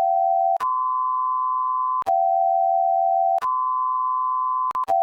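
Homemade Emergency Alert System-style alarm tone. A steady dual tone near 1 kHz alternates with a lower single tone, each held about a second and a half. Each switch comes with a brief click.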